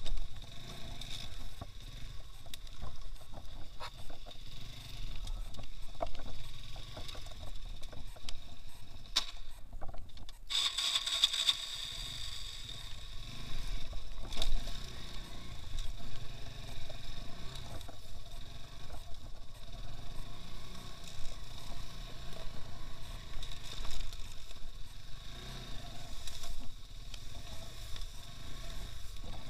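Engine of a two-wheel-drive off-road motorcycle running during a ride, with uneven low rumbling throughout; the sound breaks off briefly about ten seconds in and then carries on.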